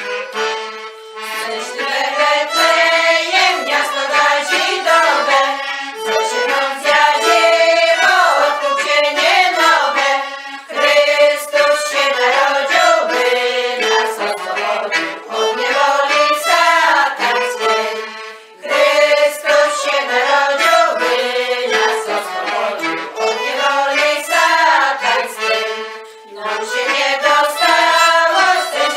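Women's folk singing group singing a Polish Christmas carol (kolęda), accompanied by fiddle and accordion, in long phrases with brief pauses between them.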